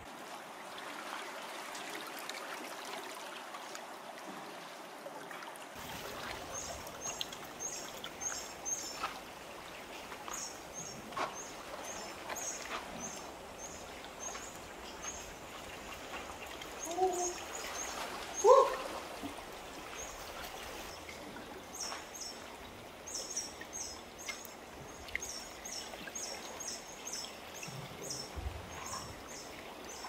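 Seawater washing and trickling among rocks in a tidal pool, with runs of quick high chirps from a small bird starting about six seconds in. Two short rising calls near the middle are the loudest sounds.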